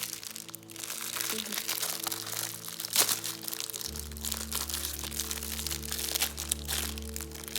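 Packaging crinkling and crackling as a squishy stress toy is unwrapped, with one sharp crack about three seconds in. Background music plays throughout, its bass line coming in about four seconds in.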